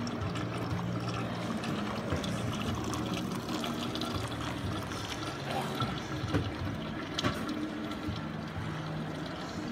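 Steady splashing and trickling of water circulating in a reef aquarium, under a low murmur of voices in the background.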